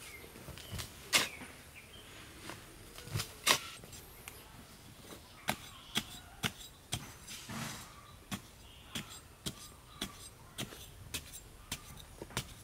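Repeated sharp knocks of a hand tool striking wood: a few irregular, louder blows in the first part, then a steady run of about two knocks a second.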